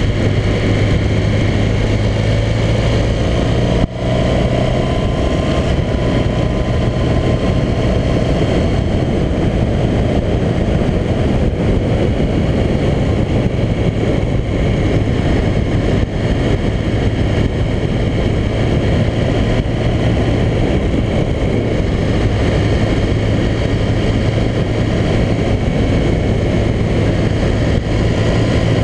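Motorcycle engine running steadily while riding up a winding mountain road, with wind rushing over the microphone. A faint tone rises over the first few seconds, and the sound drops out briefly about four seconds in.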